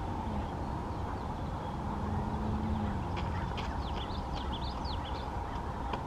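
Ducklings peeping: a quick run of short, high chirps, some rising and some falling, about halfway through, over steady low background noise.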